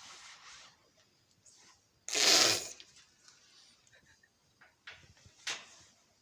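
Aerosol shaving cream can giving one short hissing spray about two seconds in, with faint rustling and a few small clicks around it.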